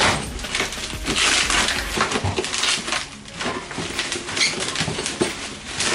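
Packaging rustling and crunching as the boxed parts are pulled out of the bottom drawer, in irregular bursts of crackle.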